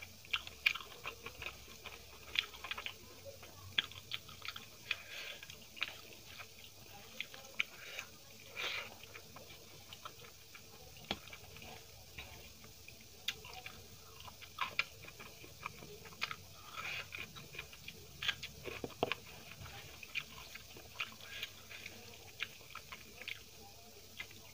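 A person chewing and crunching fried eggplant fritter and rice, close to the microphone. Many short, irregular wet clicks and crunches run throughout.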